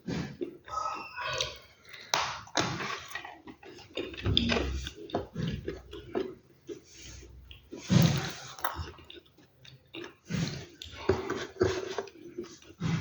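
Close-miked chewing and crunching of food, loud irregular bites and chews every second or so, the loudest about eight seconds in.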